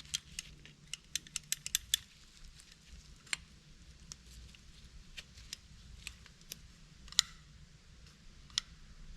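Light clicks and taps of small carburetor parts being handled and turned over on a workbench: a quick run of clicks in the first two seconds, then scattered single clicks.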